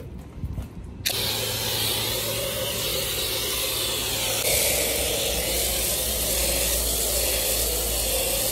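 Self-service car wash lance spraying premium foam onto a car: a steady hiss that starts suddenly about a second in.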